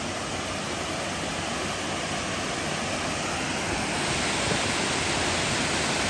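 Waterfall rushing as it cascades over tiered rock ledges into a pool, a steady even rush that grows a little louder after about four seconds.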